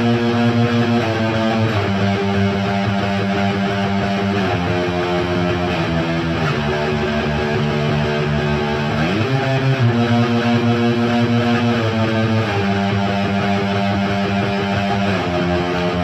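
Electric guitar with Bare Knuckle Mississippi Queen P90 pickups played through a Diezel Hagen valve head with KT77 tubes and a Marshall cabinet loaded with Celestion G12-K100 speakers. Strummed chords ring out and change every couple of seconds, with a slide up in pitch about nine seconds in.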